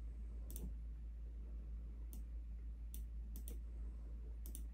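Computer mouse clicking: about seven short, single clicks at irregular spacing, over a steady low hum.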